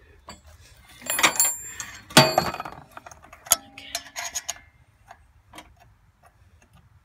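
Metal tools and parts clanking and clinking together, loudest in a clatter about one to two seconds in, followed by scattered lighter clicks and taps.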